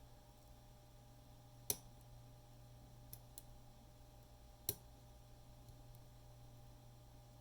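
Metal hook pick clicking against the wafers of a cabinet lock as it is picked: two sharp clicks about three seconds apart, with two faint ticks between them, over a low steady hum.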